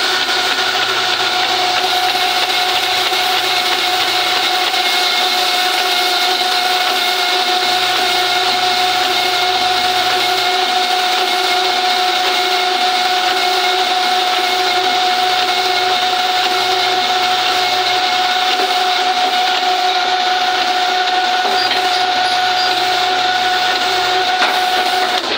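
Cylinder-honing machine running, its hone turning and stroking inside a freshly sleeved cylinder bore of a Mitsubishi 4D31 diesel block to bring it to piston clearance. It makes a steady whine over a rough grinding hiss and cuts off at the very end.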